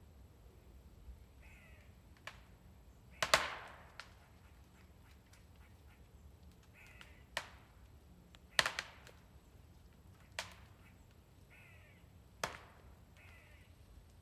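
Sharp cracks of a tree's wood giving way, about six spaced over the stretch, the loudest about three seconds in and again near nine seconds. A crow caws several times between them.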